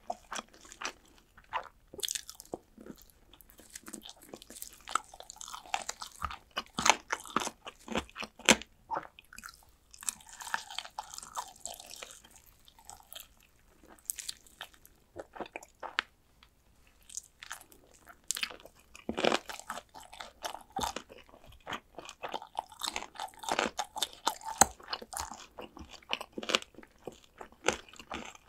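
Crunching and chewing of fried chicken drumsticks, the crisp coating crackling in many quick, irregular bites and chews.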